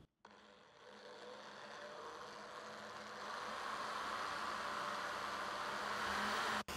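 Electric drill running with a twist bit boring into a wooden board, the cutting noise growing louder as the bit goes deeper, loudest from about three seconds in. It breaks off briefly near the end.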